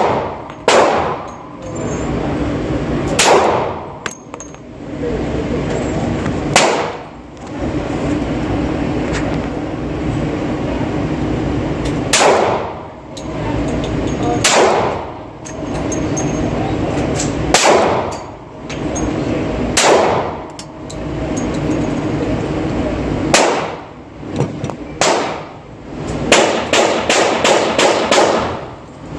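Glock 20 10mm Auto pistol firing: about nine single shots a few seconds apart, then a rapid string of about seven shots near the end, with a steady hum between shots.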